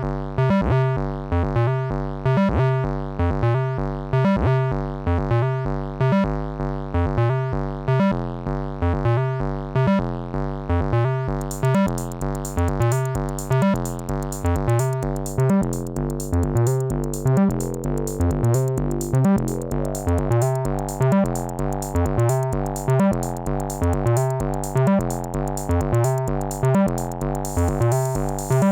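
Twisted Electrons Acid8 MKII 8-bit acid synth playing a looping, rhythmic acid sequence of short pitched notes. About eleven seconds in, a fast, even, high ticking joins the pattern, like a drum machine's hi-hats.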